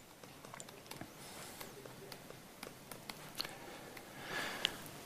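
Faint taps and scratches of a stylus writing a word on a tablet laptop's screen, scattered every half second or so, with a soft hiss about four and a half seconds in.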